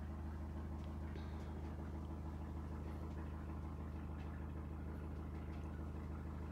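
Large marine diesel engine idling, a steady low drone that does not change in speed or loudness.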